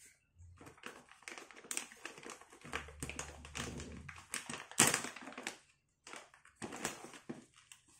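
Rapid clicking, rattling and rustling from hands handling a bag of turtle pellet food as it is got ready for feeding, with one sharper click about five seconds in.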